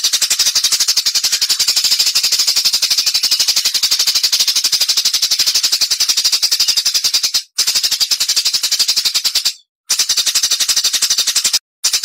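A songbird's rapid, high-pitched rattling song, the fast 'tembakan' burst, with about twelve sharp notes a second in long runs and short breaks about seven and a half and ten seconds in and near the end.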